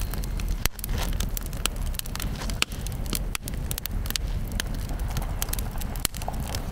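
Campfire of wood blocks burning in a steel fire ring, crackling with irregular sharp pops over a steady low rumble.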